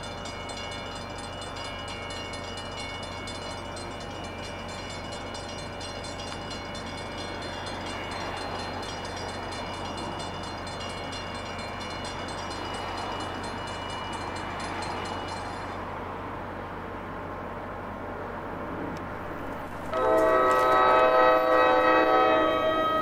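Railroad grade-crossing bell ringing rapidly over the rumble of a train, the bell stopping about two-thirds of the way through. Near the end an approaching NJ Transit train's locomotive horn sounds one long, loud, steady blast.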